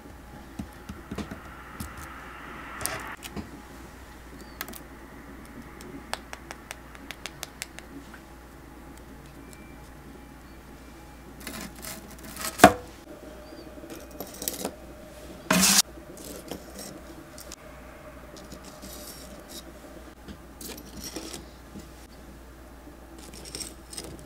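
Cookware and utensils handled on a kitchen counter: scattered clicks and clinks, a quick run of light ticks about six to eight seconds in, a sharp knock about halfway through, and a short noisy rasp a few seconds after it.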